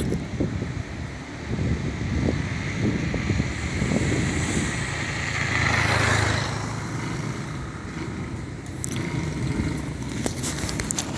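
Motorcycle engine running with a rough, uneven sound, growing louder for a moment about halfway through.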